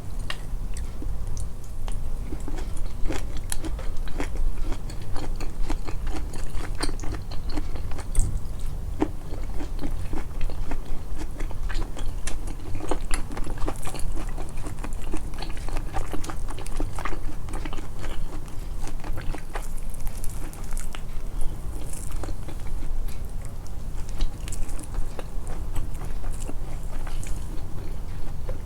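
Close-miked chewing and biting, with many small irregular mouth clicks and crunches, over a steady low hum.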